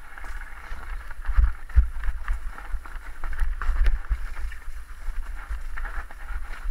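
Mountain bike rolling over a rough dirt trail: tyre noise, the bike rattling and knocking over bumps, with wind rumbling on the bike-mounted microphone. The sharpest knocks come about a second and a half and two seconds in.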